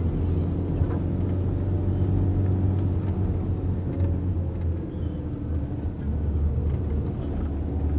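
Steady low rumble of a vehicle's engine and tyres on the road, heard from inside the moving vehicle.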